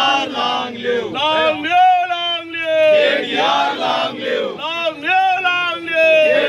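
A crowd of men's voices chanting together, loud and overlapping, in short repeated calls.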